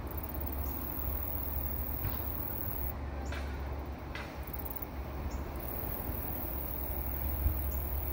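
Outdoor ambience: a steady low rumble with a few faint, short, high chirps scattered through it.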